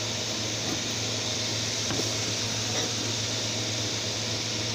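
Steady mechanical whir and hiss of a running fan, with a constant low hum underneath and a faint click about two seconds in.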